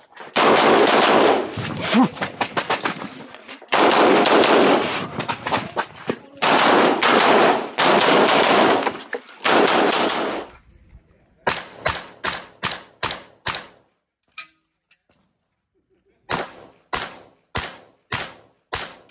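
Semi-automatic pistol fired in fast strings right at the microphone, the shots running together in echo, with short pauses between strings. About ten seconds in, more separate pistol shots follow in two strings of about seven shots each.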